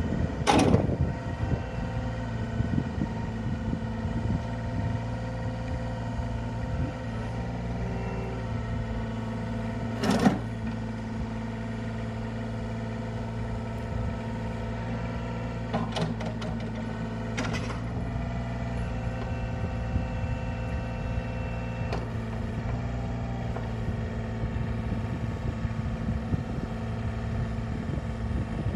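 Cat 303CR mini excavator's diesel engine running steadily while the boom, arm and bucket are worked. A few sharp knocks come through, the loudest near the start and about ten seconds in.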